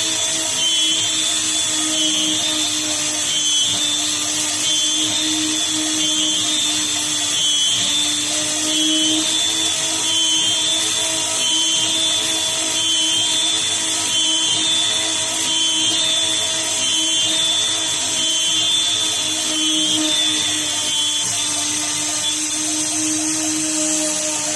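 CNC milling machine drilling an aluminium plate: a steady spindle whine with a wavering high-pitched tone from the cut, which drops out near the end while the machine keeps running.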